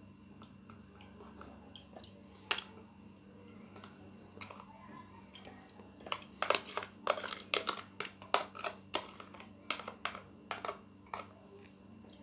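Sugared grated turnip being handled in a kitchen strainer: irregular light clicks and wet crunching, getting busier about halfway through.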